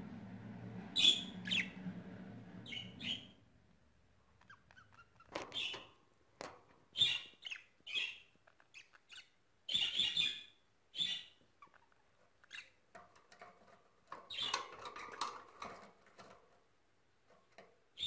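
Budgerigars chirping: short, high calls coming singly and in quick clusters, with gaps of quiet between them.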